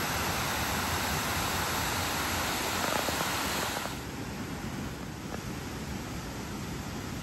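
Steady rush of falling water from a waterfall; about four seconds in it drops to the quieter, steady rush of a small rocky creek.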